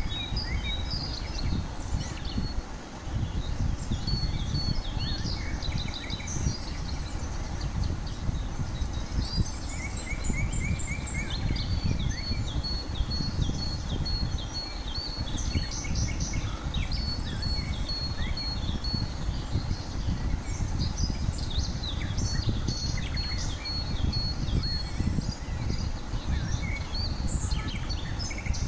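Several birds chirping and calling, with a few runs of rapid, evenly repeated high notes, over a steady low rumble.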